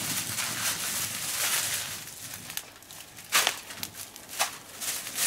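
Plastic carrier bag rustling and crinkling as it is handled, with two sharp crackles about a second apart past the middle.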